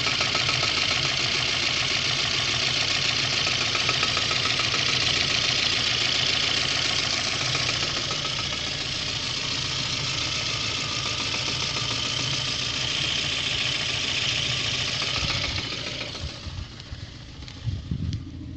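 VAZ 2109's four-cylinder engine idling steadily, with a small knock that comes every six or seven strokes or so. The owner does not know what causes it, and grinding down the camshaft bearing caps has not cured it. Near the end the sound drops sharply in level, with a few low thumps.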